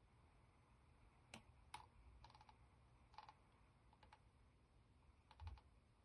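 Faint computer mouse clicks: two single clicks, then several quick runs of three or four scroll-wheel ticks while zooming out.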